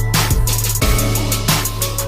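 Background music with a steady drum-kit beat, a drum hit about every half second over a held bass line.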